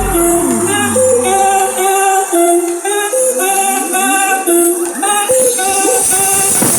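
Brazilian funk music played loud on a car sound system: a repeating melody of short notes, with deep bass that drops out about two seconds in.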